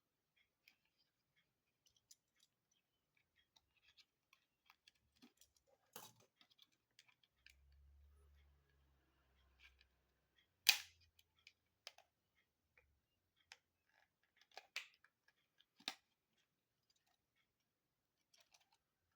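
Faint scattered clicks from hands working on small plastic parts, with a few sharper snaps; the loudest snap comes a little past the middle.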